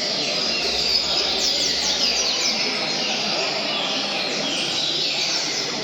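Several double-collared seedeaters (coleiros) singing at once, with fast, repeated down-slurred phrases overlapping in a dense chorus, as at a singing tournament.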